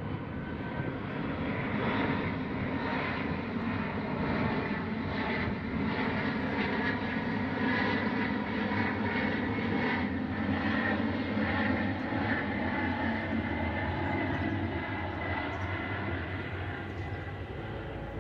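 Fixed-wing aircraft engine running steadily, a dense drone with several held tones.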